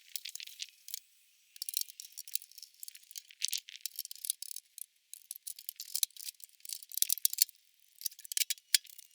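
Irregular rattling and clinking of small hard objects being handled, in uneven clusters of clicks with brief pauses.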